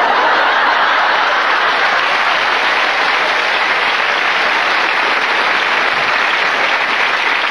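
Large television studio audience applauding, a dense, steady clapping that breaks out suddenly.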